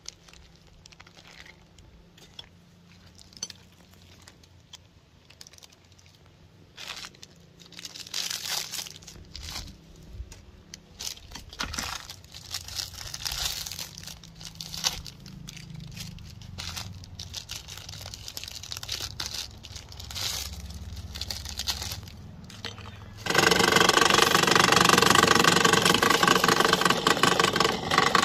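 Scattered crinkling and clicking for most of the stretch, then an electric meat grinder's motor switches on abruptly about five seconds before the end and runs loudly with a steady hum.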